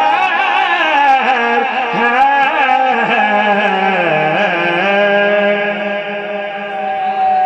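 A voice singing the closing line of a Punjabi devotional song with ornamented, wavering runs. It settles about five seconds in onto one long held final note.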